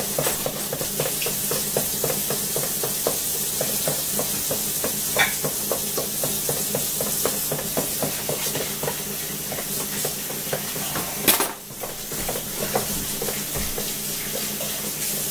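A hand stirring and rubbing rice grains in a plastic bowl: a steady gritty rustle with soft clicks about three or four times a second. There is one sharp knock about eleven seconds in.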